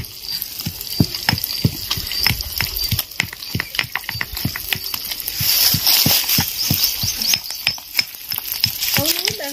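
Small fish frying in hot oil, crackling with a quick run of irregular pops and a brief hiss about halfway through.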